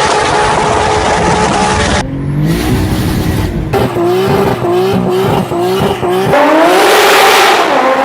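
A quick series of clips of hard-driven turbocharged 2JZ inline-six engines, switching abruptly about two seconds in and twice more. In the middle the engine pitch climbs and drops again and again, several times in a couple of seconds, and near the end it rises in one long, loud pull under full acceleration.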